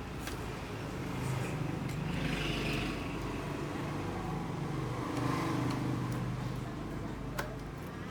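Motor vehicles passing by, their engine noise swelling twice and fading, with a sharp click near the end.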